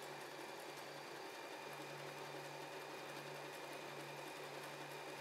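W6 N 1800 mechanical sewing machine running steadily, stitching a decorative stretch-stitch pattern with its motor humming.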